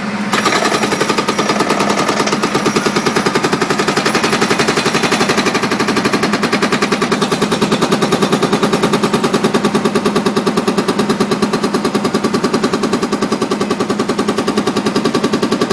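Excavator-mounted hydraulic concrete breaker starts hammering just after the start and keeps up a rapid, steady stream of blows over the digger's engine hum.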